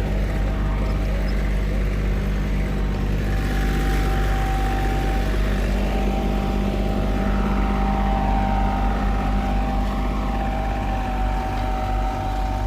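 Asphalt paver's diesel engine running steadily, with a steady high whine over the low engine drone.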